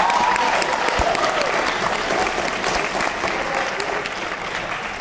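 Audience applause: a large crowd of hands clapping, loudest at first and slowly tapering off.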